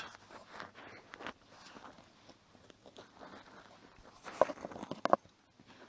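Scattered clicks, crunches and knocks of plastic and metal parts being handled and prised apart while dismantling a scrap microwave, with two louder knocks near the end.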